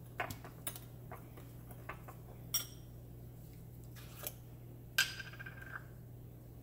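Metal spoon scraping and clinking against a small glass bowl while dry spices are stirred, with a few sharp clinks that ring briefly; the loudest comes about five seconds in and rings for most of a second. A low steady hum runs underneath.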